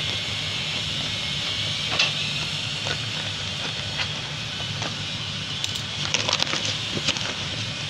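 Scissors snipping through a plastic courier bag in a few separate cuts, then a burst of plastic crinkling and rustling a little past halfway as a hand pulls the bag open and reaches inside.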